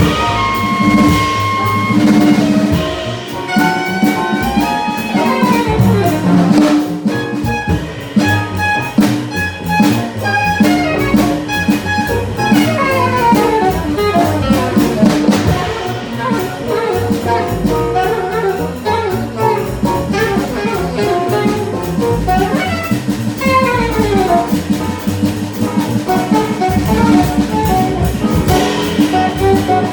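Small jazz band playing bebop live: a saxophone plays lines of quick running notes, several falling, over a drum kit and bass.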